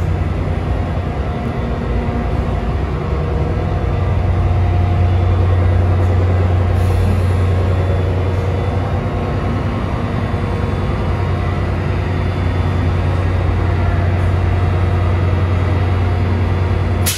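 NJ Transit Bombardier ALP-45DP dual-mode locomotive standing at the platform, running with a steady loud low hum. A short hiss of air comes about seven seconds in.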